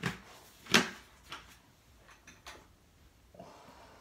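A few sharp knocks and clicks of things being handled and set down on a workbench, the loudest about a second in, then a short soft rustle near the end.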